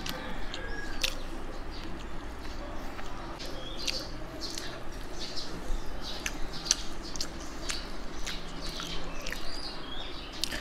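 Mouth sounds of eating rice and chicken by hand: chewing with wet clicks and lip smacks at irregular intervals, over a steady low hum.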